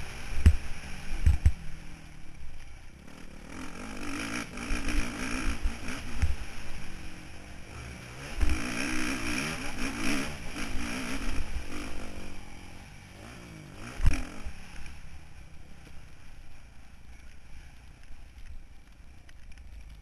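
Motocross bike engine heard from a camera on the bike, revving up and easing off in repeated surges as it is ridden over rough dirt. Several heavy thumps, the loudest about 14 seconds in, as the bike hits bumps; the engine is quieter over the last few seconds.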